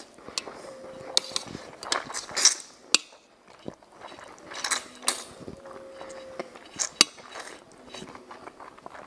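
Mouth slurping up long egg noodles in two long hissing sucks, mixed with sharp wet clicks and smacks as the noodles are eaten.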